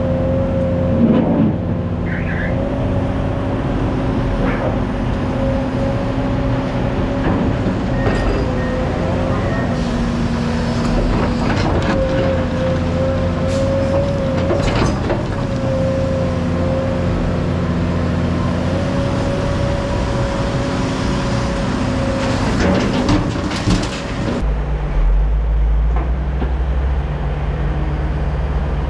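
Heavy diesel engine running steadily with a steady whine above it and scattered knocks. About 24 seconds in the whine stops and a deeper engine drone takes over.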